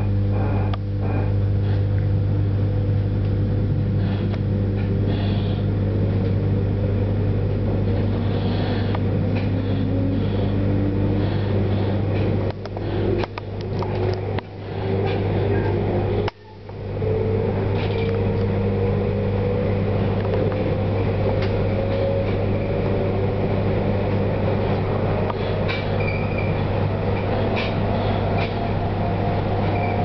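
Electric train accelerating from a station, heard from inside the carriage. A steady low hum runs under a motor whine that climbs slowly in pitch as the train gathers speed. The sound briefly drops away a few times about halfway through.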